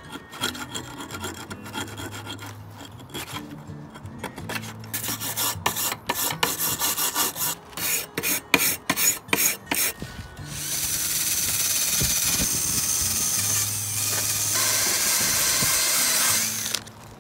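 A rusty steel plane iron being scraped with a knife blade, then scrubbed with a hand wire brush in fast back-and-forth strokes. From about ten seconds in, a cordless drill spins a wire cup brush against the metal, a steady whirring grind that stops shortly before the end.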